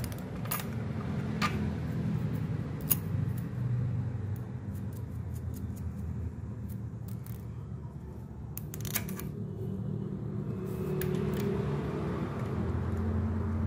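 Scattered light metallic clicks and taps as an AC servo motor is handled and seated against an aluminium CNC frame plate, over a steady low hum.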